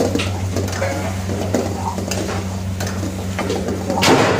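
Food sizzling in a hot pan while a metal utensil stirs and scrapes it in quick repeated strokes, over a steady low hum. The sizzle and stirring grow louder near the end.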